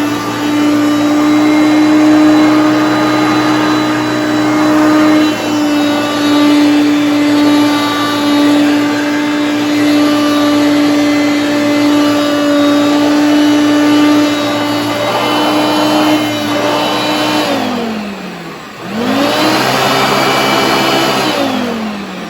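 Hoover Concept One upright vacuum cleaner running steadily. About three-quarters of the way through it is switched off and its motor winds down in pitch. It is switched back on, rising to speed, then switched off again near the end and winds down once more.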